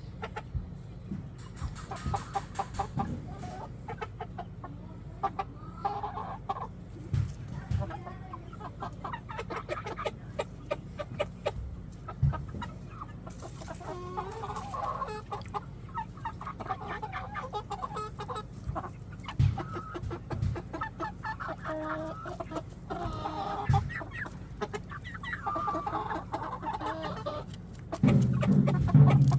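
Young chickens, about four months old, clucking and calling repeatedly over a steady low hum, with a few soft knocks. Music comes in near the end.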